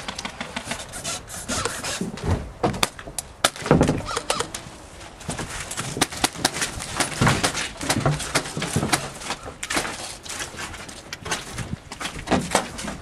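Airsoft gunfire: many sharp clicks and cracks in quick, irregular runs, with knocks on wood and the rustle of players moving.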